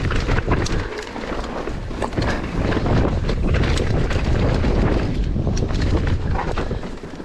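Wind buffeting the microphone of a mountain bike ridden fast down a dirt trail, with tyre noise on the dirt and frequent sharp clicks and rattles from the bike over bumps.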